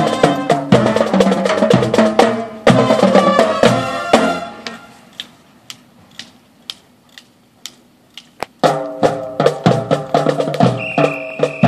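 High school marching band playing on the march: brass over a drumline with a steady beat. About four and a half seconds in, the band drops out and only sharp percussion clicks keep time. The full band comes back in loudly about two-thirds of the way through, with a high held note near the end.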